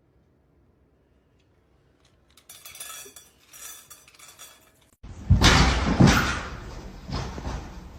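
Near silence, then faint scattered clinks. About five seconds in the sound cuts sharply to a loud clatter of hard objects, several hits that die away.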